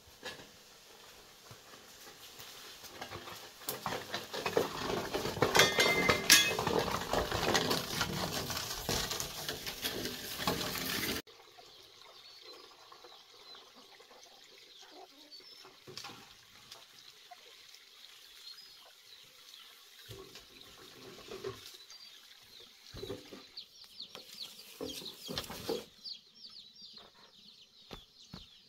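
Dense rustling and crackling of bamboo poles and footsteps brushing through dry leaves and undergrowth, loudest about six seconds in, cutting off suddenly after about eleven seconds. After that, faint high chirps and clucks of chickens with a few soft knocks and footsteps.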